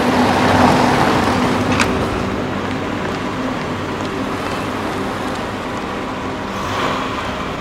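A car driving on a city street: engine and tyre noise that is loudest at first and slowly fades as it moves away, over general traffic sound.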